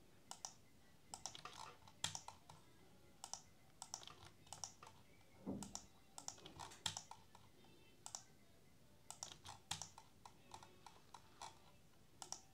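Faint, irregular clicking of a computer mouse and keyboard, a few clicks a second with short pauses between runs.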